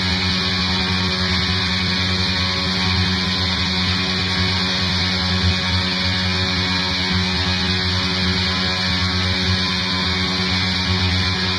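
Lo-fi black metal recording: a dense, steady wall of distorted electric guitar.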